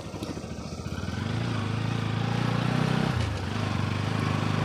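A small vehicle engine, most likely a motorcycle's, running and pulling away: its low drone builds from about a second in, dips briefly about three seconds in, then picks up again.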